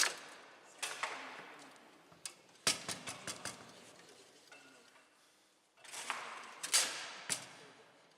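Foosball play on a Bonzini table: sharp clacks of the ball being struck by the players and hitting the table, with rods knocking, coming in quick clusters with short lulls between. The loudest knocks fall at the very start and about seven seconds in.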